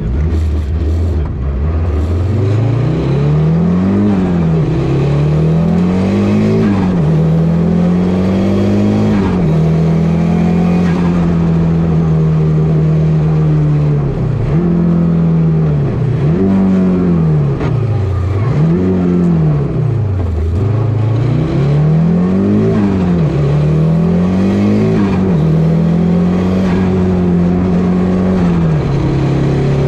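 Audi Quattro A2 rally car's turbocharged five-cylinder engine at full stage pace, heard from inside the cabin. It launches from the start, then climbs through the gears, its pitch rising and dropping every couple of seconds, with deeper drops near the middle as it comes off the throttle for corners.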